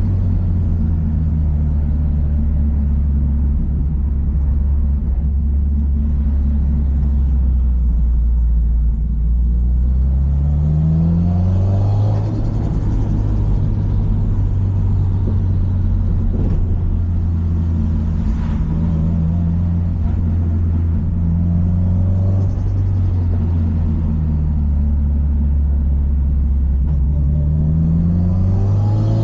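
Subaru Impreza WRX STI's EJ207 turbocharged 2.0-litre flat-four running under way, a steady low rumble whose pitch climbs twice, around ten seconds in and near the end, with a brief dip in level about twelve seconds in.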